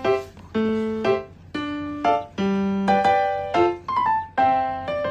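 Background music: a simple keyboard melody, about two notes a second.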